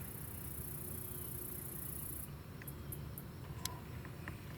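High, steady insect trill that cuts off abruptly about halfway through, followed by a few faint sharp clicks.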